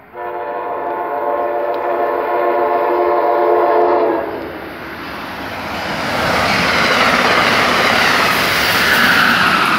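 Amtrak Keystone push-pull train's horn sounding one long blast of several tones at once for about four seconds as it approaches at speed, then the loud rushing noise of the train racing through the station.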